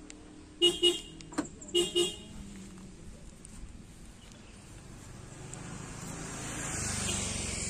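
Car horn giving two quick double toots, with a sharp click between the pairs. Near the end a vehicle passes, its noise rising and then fading.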